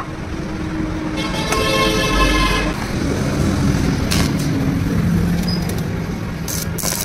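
Steady background traffic noise, with a vehicle horn sounding for about a second and a half starting about a second in.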